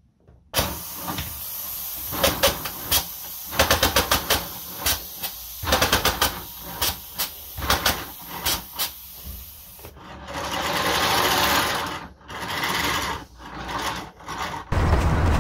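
3D-printed opposed-piston engine running on compressed air from a 2-litre bottle: air hissing with rapid, irregular plastic clacking from the pistons and gears as it pulls on a load it cannot lift. From about ten seconds in the air hiss grows louder and the clacking fades; a loud low sound cuts in just before the end.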